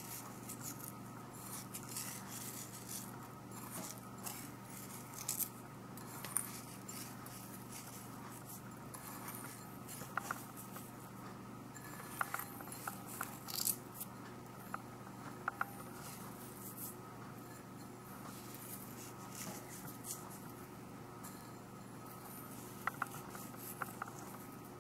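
Faint handling sounds of sugar being sprinkled by hand over custards in ramekins and glass jars: soft patters and light ticks, with a few sharper clicks of fingers or a bowl against the dishes, over a steady low hum.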